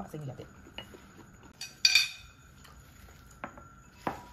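Dishes and cutlery clinking at a dinner table: a few light taps, and one sharp, ringing clink about two seconds in.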